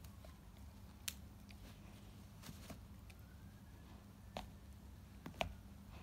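A dog quietly chewing a braided rope toy, with a few sharp clicks of teeth on the rope; the loudest comes about five and a half seconds in.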